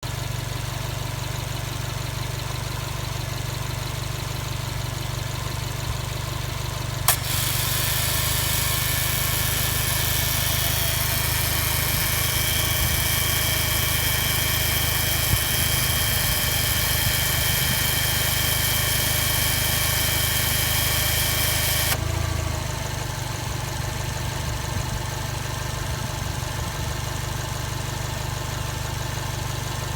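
Subaru Impreza STI (GRB) boxer engine idling. About seven seconds in there is a click as the air-conditioning compressor cuts in, and a loud hiss with steady high whining tones runs on top of the idle until it stops abruptly about fifteen seconds later. This is the compressor's abnormal noise.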